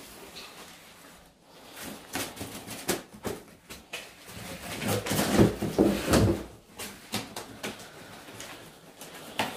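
Rustling and knocking of things being handled, with a louder, denser stretch of knocks and thumps about five to six seconds in.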